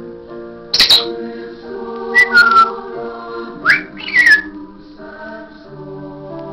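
African grey parrot giving several loud, harsh squawks and short gliding whistles, some falling and one rising, over background music with sustained choir-like chords.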